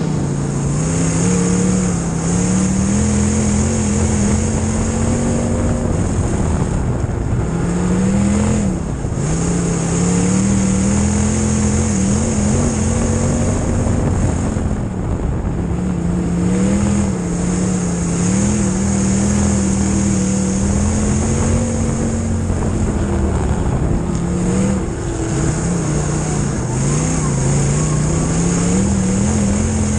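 Midwest Modified dirt-track race car's V8 engine heard from inside the cockpit while racing. Its pitch climbs and holds on the straights, then drops briefly about every eight seconds as it goes through the turns. A steady rush of wind and track noise runs underneath.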